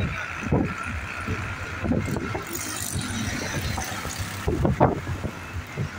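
Steady road traffic and engine noise on a busy road, with a few brief voices from the crowd rising above it.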